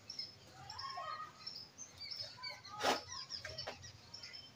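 Small birds chirping in the background, many short high chirps. One sharp click about three seconds in.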